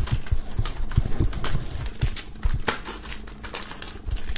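Plastic shrink-wrap film crinkling in irregular crackles as it is peeled off a CD jewel case by hand, with a few light knocks from handling the case.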